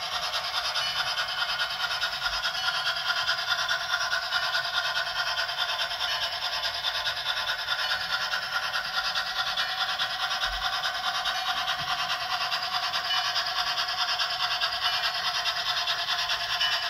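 On30-scale model steam locomotive and log cars running along the layout track: the steady whirring running noise of the locomotive's motor, gears and wheels on the rails.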